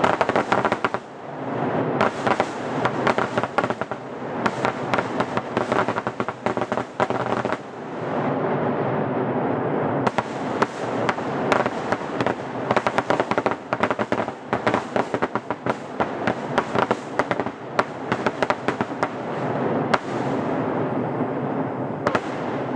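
Fireworks display going off in a dense barrage of rapid crackles and pops, easing briefly about eight seconds in before picking up again.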